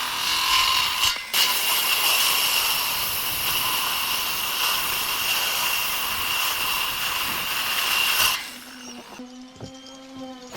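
Electric power tool running steadily on wood with a high whine, stopping briefly about a second in and then running again until it cuts off near the end, leaving a fainter low hum.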